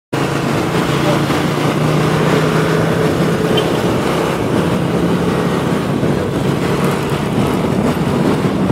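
Loud, steady road-vehicle noise: an engine running at an even pitch under heavy road and wind noise, from traffic on the move.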